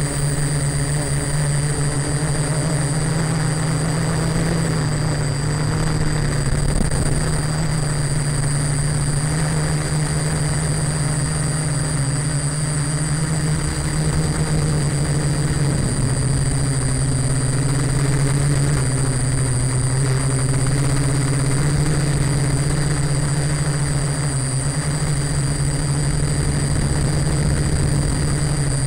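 Small electric quadcopter's four motors and propellers droning steadily in flight, the pitch wavering slightly as the throttle changes, with a faint steady high whine above it.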